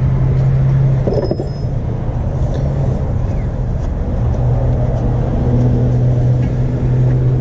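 A steady low mechanical hum, like an engine running, with a single click about a second in.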